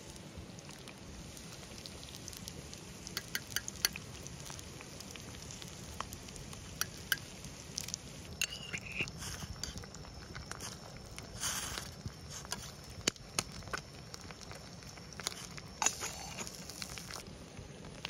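Small wood fire crackling, with scattered sharp clicks and pops over a steady low hiss.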